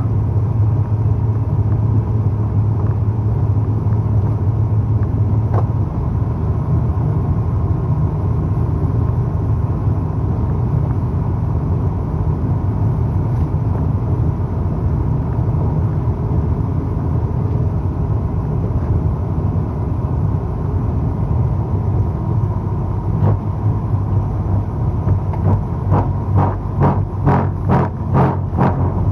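Squid-fishing boat's engine running steadily with a low hum. Near the end a rhythmic pulsing sets in, about three beats a second.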